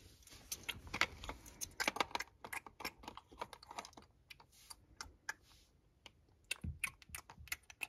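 Light, irregular clicking and tapping of plastic toy food pieces against a plastic toy plate and a doll's face, as pretend pizza and strawberries are picked up and fed to a doll, in two clusters with a lull in between.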